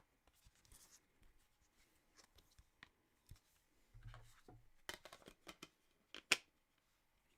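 Faint handling of a plastic Blu-ray case and its paper cover sheet, which is being pulled out and flipped to the reverse artwork: soft rustles and scattered light clicks, a dull bump about four seconds in, and a sharper plastic snap about six seconds in.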